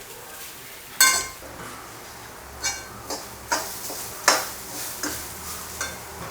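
A spoon knocking and scraping against a kadai while stirring, with about six scattered sharp clinks, the loudest about a second in.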